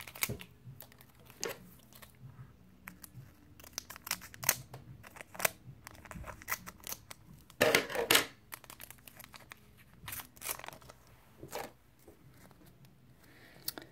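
Foil trading-card booster pack being torn open and crinkled, in irregular crackles and rustles, loudest about eight seconds in.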